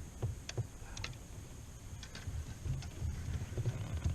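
Handling noise on a plastic fishing kayak: a few separate sharp clicks, about one a second, over soft low knocks as the fish and gear are handled.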